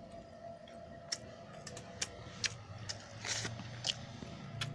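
Sounds of eating rice and fish curry by hand from steel bowls: scattered small clicks and taps, with a short rustle about three seconds in.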